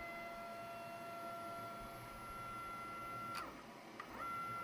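Stepper motor of a Lowrider 3 CNC jogging the router carriage along the X axis under pendant control, with a steady high-pitched whine. About three and a half seconds in the whine falls in pitch and stops. After a short pause it rises again as the carriage starts the next move.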